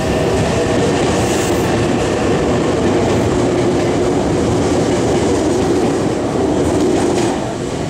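Meitetsu 3300 series and 3100 series electric train, coupled, running past along the platform with a steady loud rolling noise. The noise falls away near the end as the last car goes by.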